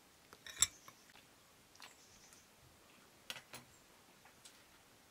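Cutlery and dishes clinking at a meal table: a few sharp light clicks, the loudest about half a second in and two more close together about three seconds in.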